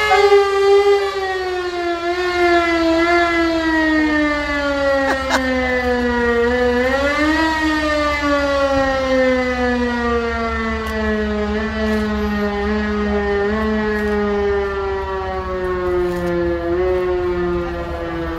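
A siren wailing with a slowly falling pitch, rising briefly about seven seconds in and then winding down further. Tractor engines rumble low underneath.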